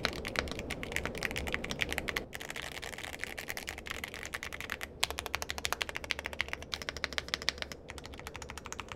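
Rapid typing on a Yunzii 75% mechanical keyboard: a dense run of keystroke clicks, many per second. The sound changes abruptly about two seconds in and again about five seconds in.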